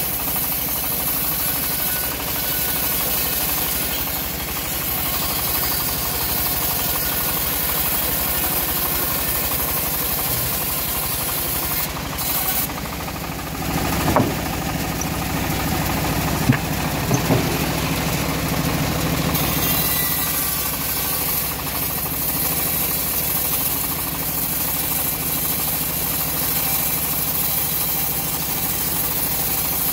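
Homemade engine-driven band sawmill running steadily while its blade cuts an old teak log butt. A few short wooden knocks come around the middle as a sawn board is handled.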